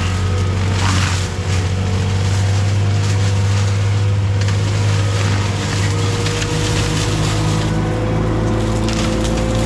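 CAT 259D3 skid steer with a Gyrotrac mulching head, its diesel engine running with a steady low drone and a thin whine that slowly rises in pitch.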